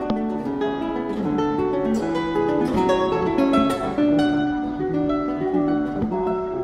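Acoustic guitar playing a plucked melody of many separate notes.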